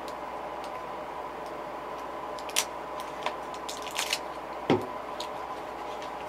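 A few sharp clicks and taps from handling a plastic lure and acrylic paint bottles at a worktable, over a steady background hum. The loudest is a short knock that drops in pitch, just before the five-second mark.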